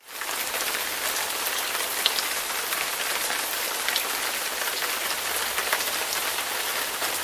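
Rain falling steadily: a dense, even patter with scattered sharper drops.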